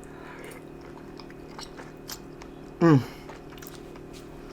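Mussels being chewed, with faint wet mouth clicks and smacks. About three seconds in, a single short, loud vocal sound slides down in pitch.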